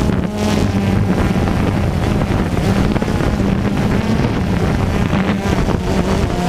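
DJI Phantom 2 quadcopter's motors and propellers humming steadily, heard at close range from on board the drone, with wind on the microphone.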